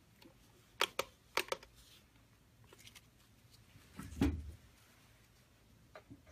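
Light clicks and taps of nail-art tools being handled and set down on a towel-covered table, then a louder soft thump about four seconds in as the hand and nail tip go into a gel-curing lamp to set the first layer.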